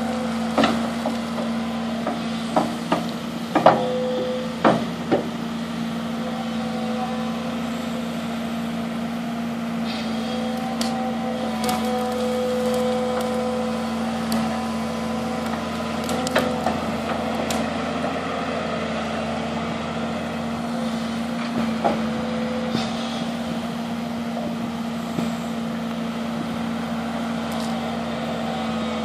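Volvo EC160BLC crawler excavator's diesel engine running steadily under hydraulic load, with a cluster of sharp knocks and cracks in the first few seconds and a few more later on.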